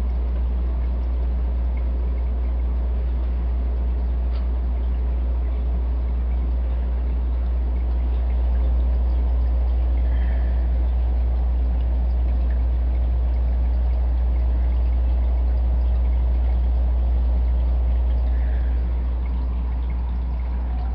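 Aquarium filter running: a steady low hum with water trickling over it.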